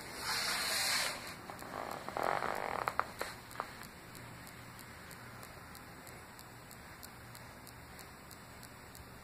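Breath and rustling noises from a person balancing in a headstand on carpet, with a few small clicks about three seconds in, then only a faint steady hiss.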